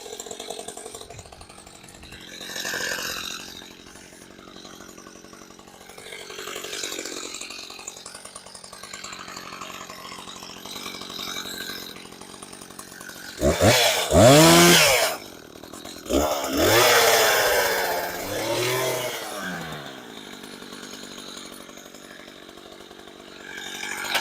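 Gas chainsaw idling, then revved hard twice about halfway through, the engine pitch climbing and falling back each time.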